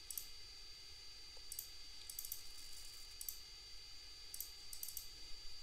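Computer mouse clicking: scattered short clicks, some singly and some in quick pairs, over a faint steady hiss with a thin high whine.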